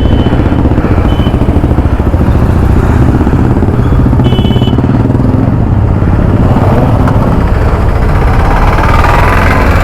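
Motorcycle engines running steadily, with a short high beep about four seconds in.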